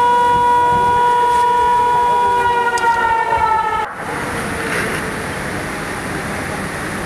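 Emergency vehicle siren sounding a loud, steady high tone that sags slightly in pitch and cuts off abruptly about four seconds in, leaving a quieter steady background noise.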